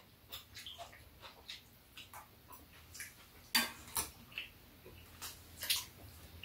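Metal chopsticks and spoons clinking and scraping against a metal pot and bowls as two people eat, in short irregular taps, with a few louder clinks near the middle.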